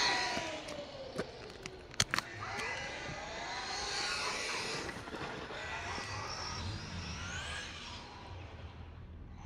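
Team Associated Rival MT10 RC monster truck's brushless electric motor whining as it is driven, rising and falling in pitch as it speeds up and slows, over a hiss of tyre noise. A few sharp clicks come about two seconds in.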